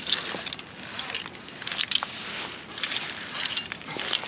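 Metal climbing gear (carabiners and hardware on a harness) jangling and clinking in repeated bursts, about once a second, as a climber moves up a fixed rope on ascenders.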